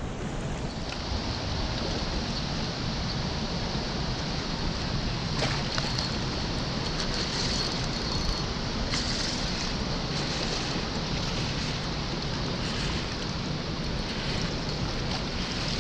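Steady rush of turbulent river water flowing out below a dam.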